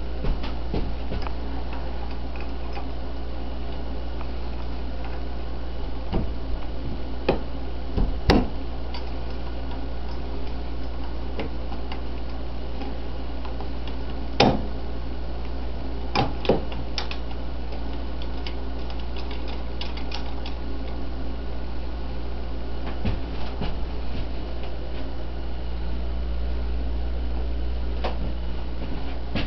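A steady low mechanical hum, with scattered clicks and knocks of metal parts being handled: bolts and a metal grab bar being offered up to a three-wheeler's rear frame. The loudest knock comes about 8 seconds in, another about halfway, and a quick cluster just after.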